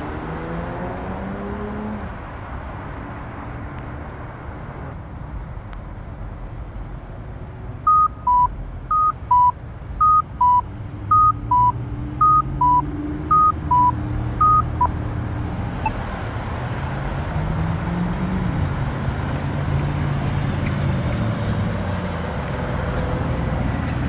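Accessible pedestrian signal sounding a two-note walk tone, a higher beep then a lower one. The pair repeats about once a second for some seven seconds, over steady road traffic.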